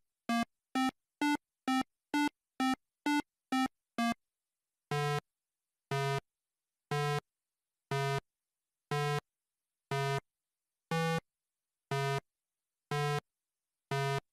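Short electronic beeps in a retro video-game style, marking the steps of walking pixel-art animals. Quick, higher beeps come about twice a second for the first four seconds, then lower, longer beeps once a second.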